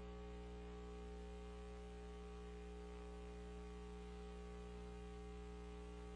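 Faint, steady electrical mains hum, with no other sound.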